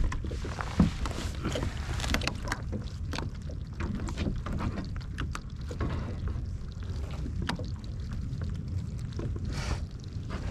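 Steady wind rumble on the microphone, with scattered light clicks and knocks and one sharper knock about a second in.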